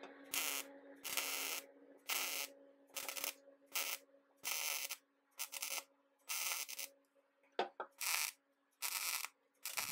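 MIG welder laying short stitch welds on the sheet-steel floor tunnel of a 1968 VW Beetle, with the welder turned down low. About a dozen brief bursts of arc noise, each well under a second, come with short pauses between them over a steady low hum.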